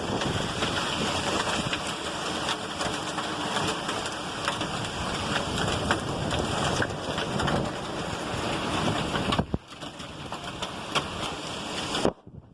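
Heavy rain and hail falling hard in gusty wind, a steady roar dotted with many sharp ticks of hailstones striking. It drops sharply about nine and a half seconds in to a lighter patter, and nearly cuts out near the end.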